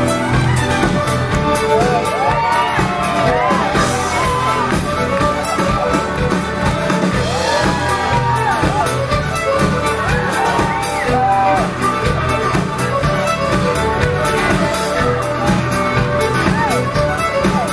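Live fiddle band playing a tune led by two fiddles over bass guitar and drums with a steady beat. Whoops and shouts from the crowd rise over the music a few times.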